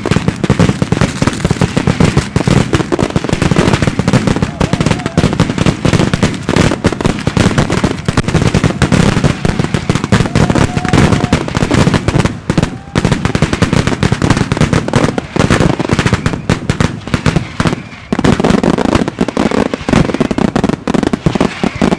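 Spanish-style mascletà: a dense, near-continuous barrage of ground-level firecrackers going off in rapid, overlapping bangs, with aerial fireworks bursting overhead.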